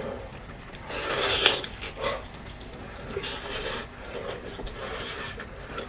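Close-miked eating sounds: wet chewing and mouth noises of someone eating, with two longer hissy stretches about a second in and about three seconds in, and small clicks between.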